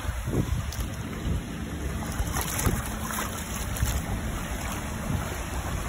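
Shallow floodwater from a cloudburst running in sheets over asphalt, a steady rush of water, with wind buffeting the microphone.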